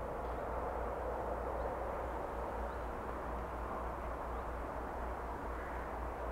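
Steady outdoor ambience: a continuous, even rushing noise with a low rumble beneath it, and a few faint high chirps.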